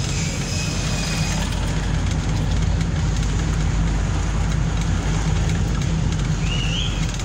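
Steady engine rumble and road noise from a vehicle moving slowly along a street.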